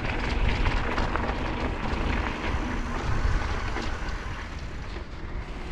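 Wind rumbling on the microphone of a moving electric bike, with the crackle of its wide tyres rolling over a sandy dirt track.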